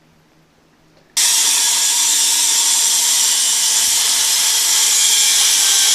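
Angle grinder running steadily on steel, a loud, even hiss with a steady whine. It starts suddenly about a second in and cuts off abruptly at the end.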